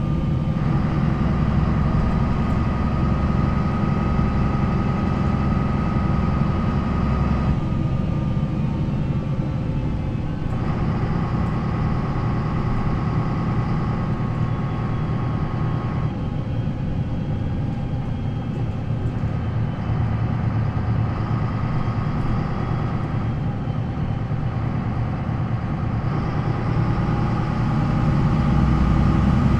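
MAN NL 263 city bus's D28 six-cylinder diesel engine with its ZF Ecomat automatic gearbox, running continuously under way with a steady whine alongside the engine. The engine note changes several times as the load and gears change, and grows louder near the end.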